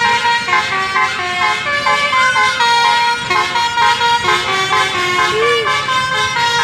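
Indonesian bus 'telolet' horn, a Basuri multi-tone horn, playing a tune of short steady notes that step up and down in pitch one after another.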